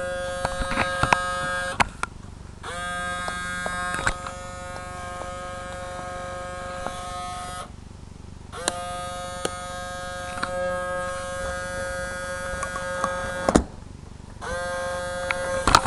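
Small motor inside an RCA CMR300 VHS camcorder whirring with a steady whine, stopping and restarting about every five seconds with brief pauses and light clicks between runs. The camcorder cannot eject its tape, which the owner thinks is down to a broken belt.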